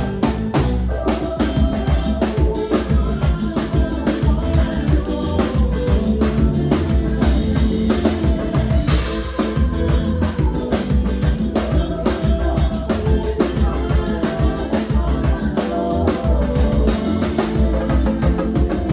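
A live band playing a song, with a drum kit keeping a steady, dense beat of bass drum and rimshot hits under the other instruments.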